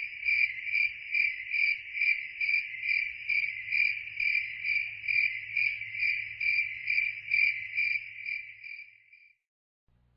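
A cricket chirping: a steady run of evenly spaced high chirps, about two a second, that stops near the end.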